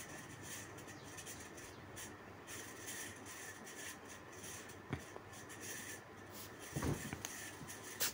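Steel spatula stirring sliced onions in a kadai of hot oil: faint scraping and rubbing, with a few light knocks of the spatula against the pan about five, seven and eight seconds in.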